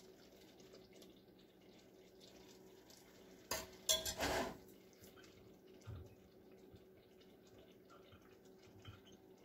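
A metal spoon clinking against a saucepan a few times in a short cluster about three and a half seconds in, as boiling candy syrup is spooned out for a cold-water soft-ball test. A faint steady hum runs under it, and there is a small thump near six seconds.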